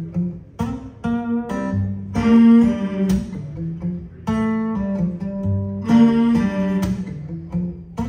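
Recorded acoustic guitar music played back over Wilson Audio floor-standing loudspeakers driven by dCS and D'Agostino hi-fi electronics. Chords are struck about every second and left to ring over a low bass line.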